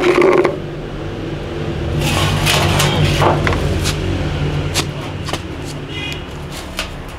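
Water splashing and scraping as a stone pot is washed by hand in a large metal basin, with scattered knocks. A steady low hum runs underneath.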